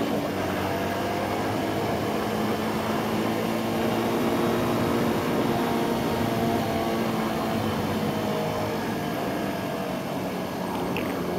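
Cruiser motorcycle engine running at a steady cruising speed, holding one even tone, with wind rushing over the bike-mounted microphone.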